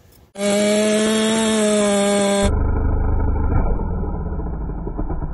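Custom nitrous-equipped Stihl MS460-series two-stroke chainsaw held flat out, a steady high-pitched scream that starts suddenly and cuts off abruptly about two and a half seconds in. After it comes a dull, muffled low rumble with the highs cut off.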